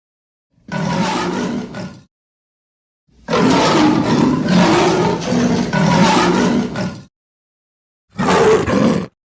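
Cartoon lion roar sound effects: three separate roars with dead silence between them. The first is short, the second is long at about four seconds, and a short one comes near the end.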